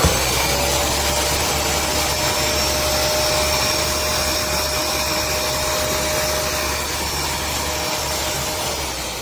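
Hoover SmartWash Pet carpet cleaner's suction motor running with a steady whine. Near the end it is switched off and starts to wind down, its pitch falling.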